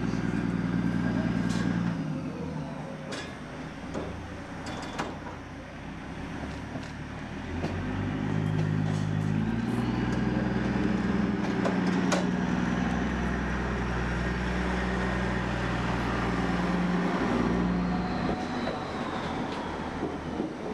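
MK45 narrow-gauge diesel locomotive running as it runs around its train: a steady engine note, louder at first, dropping back for a few seconds, then louder again from about eight seconds in before easing off near the end. A few sharp clicks are heard over it.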